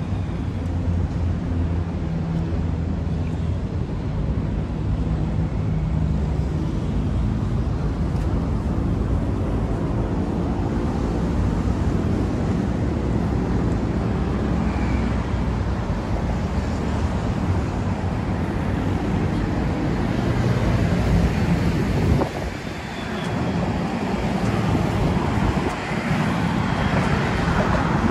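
A large engine running with a steady low hum under wind-like rushing noise; the hum drops away about three-quarters of the way through, leaving mostly the rushing noise.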